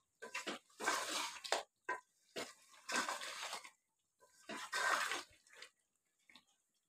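A long-handled spatula stirring and scraping thick mutton and fried-potato curry around a large aluminium pot, in four separate strokes with short pauses between, as the potatoes are sautéed into the mutton.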